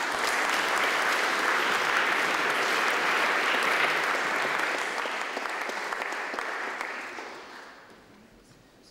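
Audience applauding in a hall at the end of a talk, steady for about seven seconds and then dying away.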